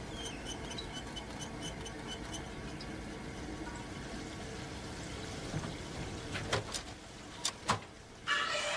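Hamster wheel turning, light rhythmic ticks about four a second over a steady hiss. A few sharp knocks follow, and electronic music starts near the end.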